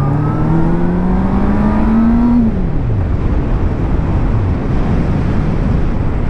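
Honda CBF600's inline-four engine revving up under acceleration, its pitch climbing steadily, then the revs dropping sharply about two and a half seconds in as the throttle is shut for a gear change. After that, steady wind rush on the riding microphone, with the engine low beneath it.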